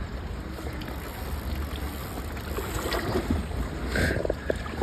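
Water splashing as a hooked wels catfish thrashes at the surface close to the bank during the fight, with a louder splash about four seconds in, over a steady low wind rumble on the microphone.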